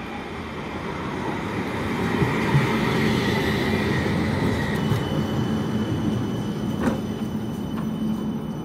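West Midlands Metro CAF Urbos 3 tram passing close by, its wheels rumbling on the rails and growing to their loudest about three seconds in. A steady high tone sounds over the rumble, replaced by a thinner, higher squeal from about halfway.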